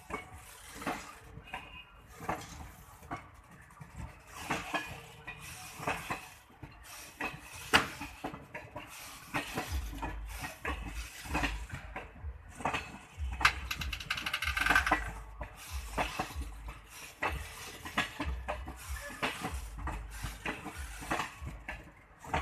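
Irregular metallic clanks and clicks from a slow-moving passenger train, with a low rumble that rises and falls.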